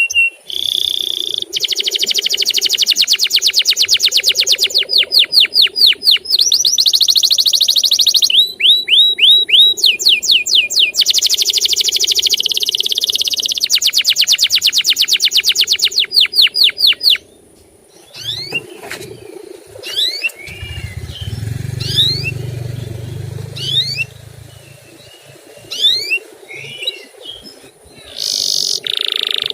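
Male canary singing: loud rolling trills of rapidly repeated high notes that switch to a new pattern every second or two. About seventeen seconds in the trilling stops and only scattered sharp, falling chirps follow, with a low rumble underneath for a few seconds.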